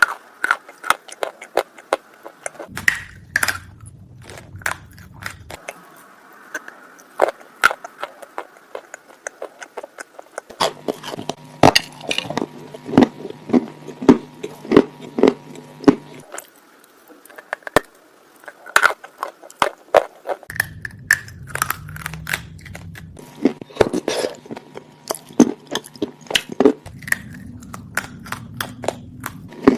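Close-miked crunching of edible clay being bitten and chewed: many sharp, irregular crunches, in fast runs at times.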